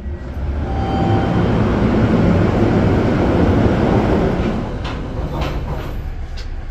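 NJ Transit commuter train rumbling, swelling loud over a couple of seconds and then easing off to a quieter running noise with a few sharp clicks near the end.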